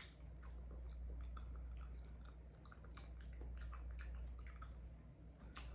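Faint close-miked chewing and mouth sounds of a person eating a shrimp boil, with scattered small clicks and smacks.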